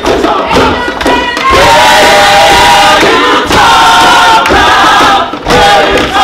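A group of voices singing together, holding long chords of several notes at a time, with short breaks between the held phrases.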